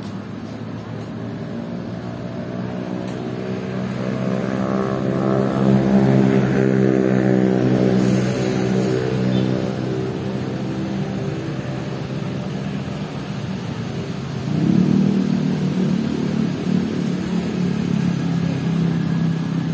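Motor vehicles passing close by. One engine note builds and peaks about six seconds in, then fades, and a second vehicle comes in about fourteen and a half seconds in.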